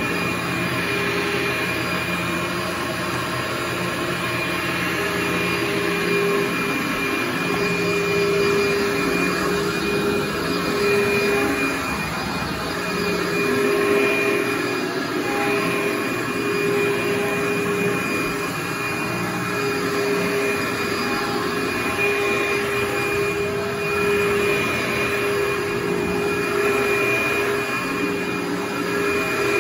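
Old upright carpet-cleaning vacuum running steadily as it is pushed back and forth over carpet. Its motor gives a steady whine with a higher tone above it, swelling a little with the strokes.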